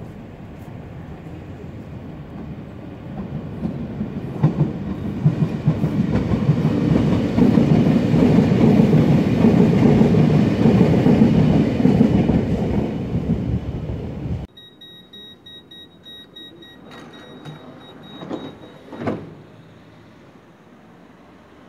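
Euskotren UT900 narrow-gauge electric multiple unit approaching and passing close below, the rumble of its wheels on the rails building up, loudest about eight to twelve seconds in, then cut off abruptly. After that comes a much quieter stretch with a steady high-pitched tone and a few short knocks.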